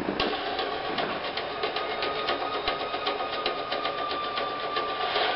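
Steady hiss with scattered crackles and clicks, the aftermath of a car crash, with a faint high ringing tone about two seconds in that holds until near the end.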